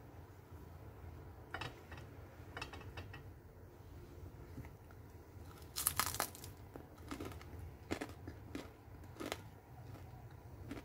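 Quiet, scattered crunches and crackles of crispy flour-battered fried tempeh being torn apart and bitten, the loudest about six seconds in.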